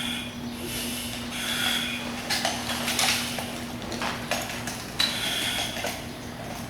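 Breathing through an SCBA face piece and regulator: a hissing breath with a thin whistle-like tone, about every second and a half, with sharp knocks and rubbing as the air pack is handled.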